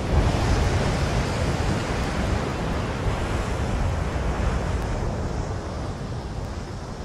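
Rushing water of a waterfall: a steady, full rush that swells in at the start and slowly fades toward the end.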